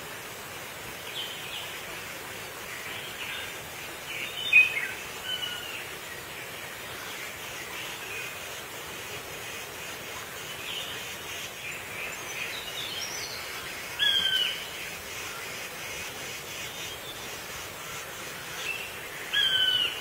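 Wild birds calling over a steady outdoor hiss: scattered short chirps, and three louder calls that slide down in pitch, the loudest a little after four seconds, the others about fourteen seconds in and near the end.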